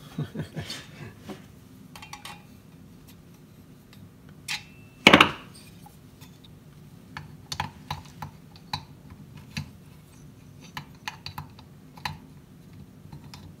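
Light clicks and taps of a chainsaw's metal cylinder being handled and test-fitted over the piston onto the crankcase, with one louder knock about five seconds in.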